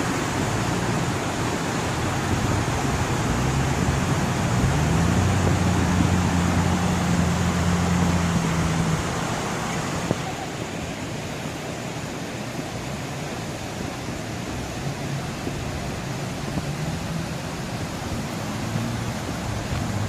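Steady rushing noise of a fast-flowing, flooding creek, with a low engine hum underneath that stops about halfway through.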